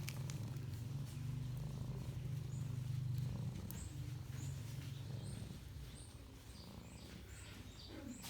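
Domestic cat purring close by, a steady rumbling purr that is strongest in the first few seconds and grows fainter about two-thirds of the way through.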